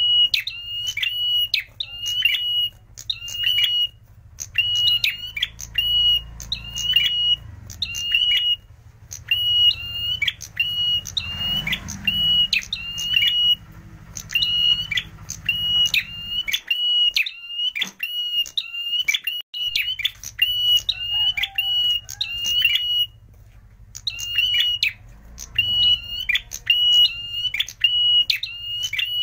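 Caged tailorbird (prenjak merah) singing a loud, fast run of sharp, repeated high notes, about three a second, in runs of a few seconds broken by brief pauses.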